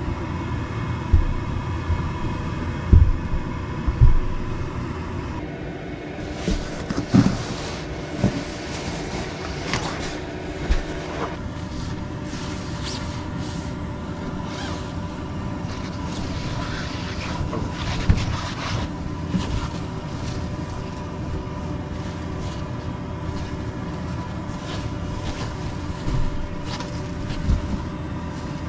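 A nylon sleeping bag rustling, with soft thumps as it is pulled out and spread. Under it runs a steady mechanical hum.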